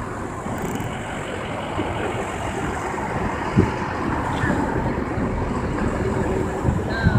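Steady low rumble of a parked vehicle's engine running, over outdoor street noise.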